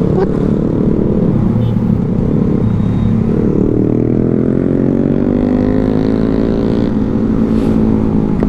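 Suzuki GSX-S150 motorcycle's single-cylinder engine running under way, with a steady low wind rumble on the microphone. From about three seconds in, the engine's pitch climbs steadily as the bike accelerates.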